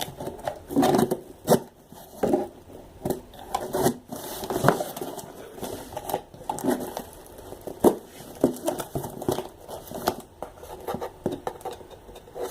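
A cardboard shipping box being handled and pulled open by hand: irregular rustling, scraping and crinkling of cardboard and packaging.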